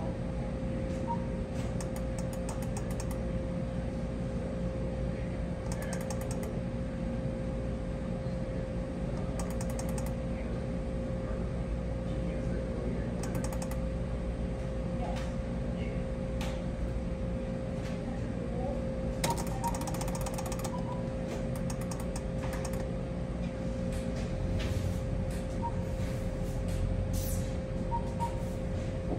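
Skill-game machine running its bonus spins: a steady hum over a low rumble, broken every few seconds by short bursts of rapid clicking.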